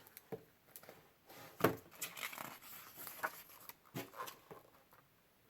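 Faint handling noise: a few soft scattered clicks and rustles, the clearest about a second and a half in.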